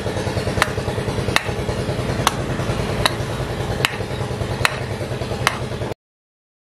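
A hatchet chopping into a small wooden block on a chopping stump, about seven sharp strikes evenly spaced under a second apart, over a steady low engine-like hum. The sound stops abruptly about six seconds in.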